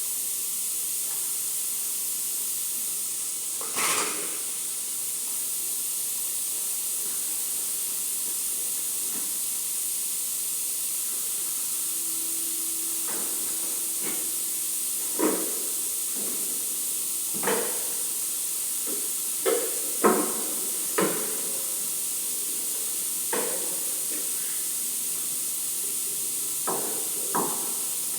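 A steady high hiss, with a sharp knock about four seconds in and a scattered run of sharp knocks and taps through the second half.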